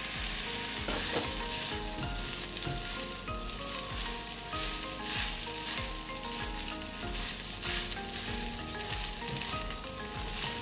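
Nasi goreng sizzling in a hot wok while being stirred and tossed with a silicone spatula, a steady frying hiss broken by the rustle and scrape of the rice being turned.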